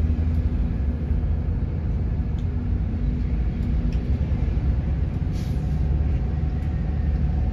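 Sleeper bus on the move, its engine and road noise a steady low rumble.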